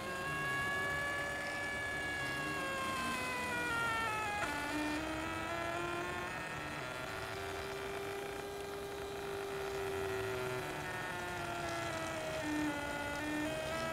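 Printrbot kit 3D printer's stepper motors whining while the print head traces a circle. The pitch glides up and down in slow arcs, with a sharper dip about four and a half seconds in and another shift near the end.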